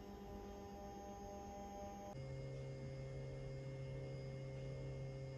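Soft background music: held, pure-sounding tones that move to a new chord about two seconds in.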